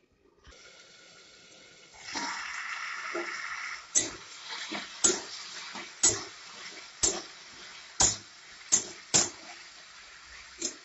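Curry simmering in a metal kadai with a steady bubbling hiss, louder for a couple of seconds about two seconds in, then a metal spatula stirring it and knocking against the pan side about once a second.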